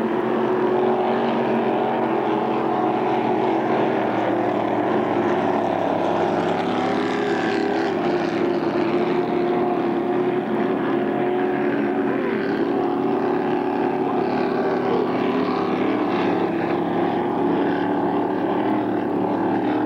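Racing powerboats' engines running flat out on the water, a steady, unbroken engine drone.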